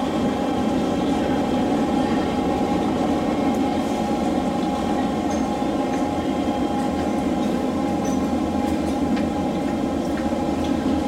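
Inside an SMRT C151 metro car running at a steady speed on the elevated line: a constant low rumble of wheels on rail with a steady hum over it, and a few faint ticks.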